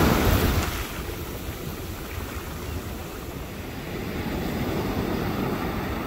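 Ocean surf breaking and washing into the shallows, with wind rumbling on the microphone; loudest in the first second, then a steady wash.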